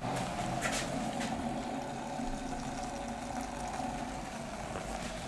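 Electric kettle of just-boiled water: a steady rumbling hiss as the hot water is poured into a plastic measuring jug, with a couple of light clicks about a second in.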